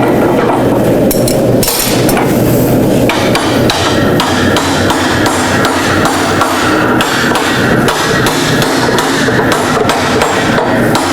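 Hand hammer striking red-hot solid steel bar stock, repeated blows in quick succession as the bar is bent around a steel mold, over a steady low rushing noise.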